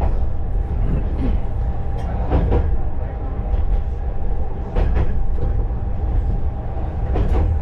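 KiHa 20-series diesel railcar under way, heard inside the car: the DMH17 diesel engine running with a steady drone and a faint steady whine, and wheels knocking over rail joints a few times.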